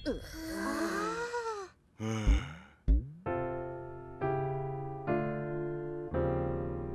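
A piano played in slow chords, four struck about a second apart and left ringing. Before them come short wordless cartoon voice sounds and two quick thumps.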